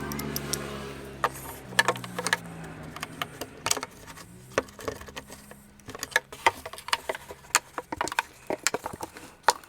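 Socket ratchet clicking as a fender bolt is worked, the clicks scattered at first and coming in quick runs from about six seconds in. A low steady hum fades out in the first couple of seconds.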